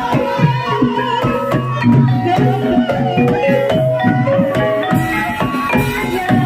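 Javanese gamelan music of the kind that accompanies an ebeg dance. A melody of struck metal notes steps up and down over a steady hand-drum rhythm.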